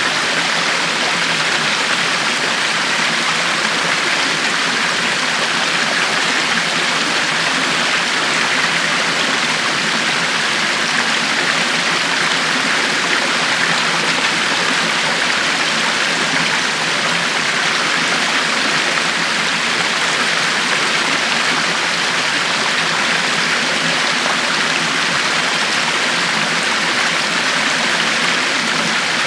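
River water flowing steadily over rocks, an even rushing and babbling with no breaks.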